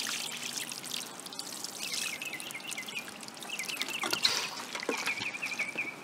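Water pouring and trickling from the spout of a plastic watering can onto sand, lightly watering in a freshly planted Bermuda grass plug.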